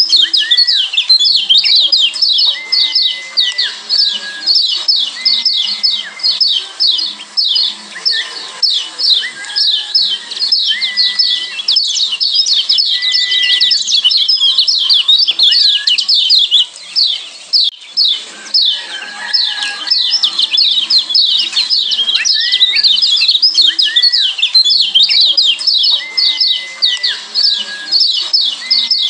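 Lombok yellow white-eyes (kecial kuning, a Zosterops white-eye) calling in a dense, fast run of high, sharply falling 'ciak' chirps. Short level whistles sound lower down every few seconds, and the chirping thins out briefly past the middle.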